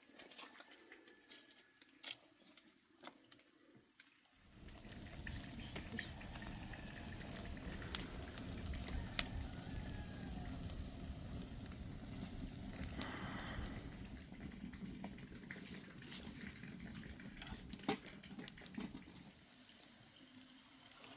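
After a quiet start with a few faint clicks, a steady watery bubbling and rushing sets in about four seconds in, with occasional sharp clicks, easing off near the end.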